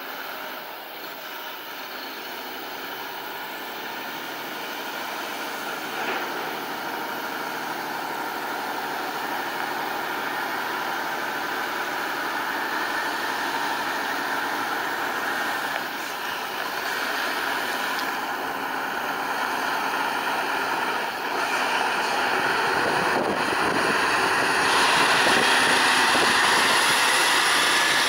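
Mercedes-Benz Arocs 3645 tridem tank truck's straight-six diesel engine running as the truck drives up a gravel road, growing steadily louder as it approaches and is loudest near the end as it passes close.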